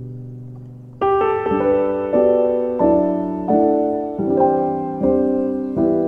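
Background piano music: a held low chord fades away, then about a second in a slow line of single notes begins, roughly one every half to two-thirds of a second, each ringing and fading.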